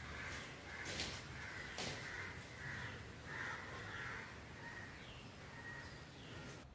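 Harsh bird calls repeating every half second or so, with two sharp knocks about one and two seconds in as the dog noses the wire-mesh rat trap.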